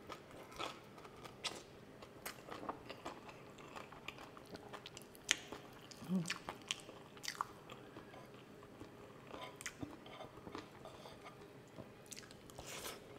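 A person chewing and eating close to the microphone: irregular wet smacks and clicks of the mouth.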